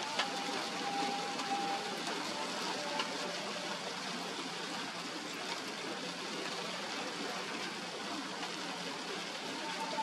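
Steady hiss of falling rain, with a few faint held tones in the first three seconds.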